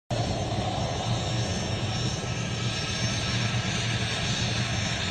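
Helicopter engine and rotor running steadily, cutting in abruptly right at the start.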